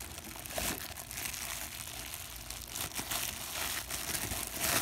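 Plastic bag crinkling and rustling irregularly as hands work at the knot tied in it, with a louder crackle near the end.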